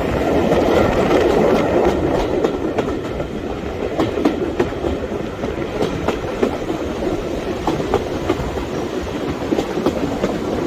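Train running along the track: a steady rumble with irregular clicks of the wheels over the rail joints.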